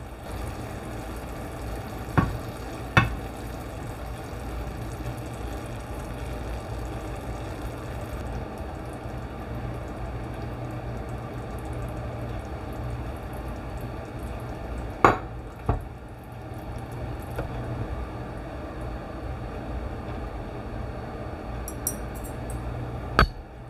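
Shakshuka's tomato-and-pepper gravy simmering in a frying pan with a steady low sizzle. A handful of short sharp taps stand out: two a few seconds in, two in the middle and more near the end.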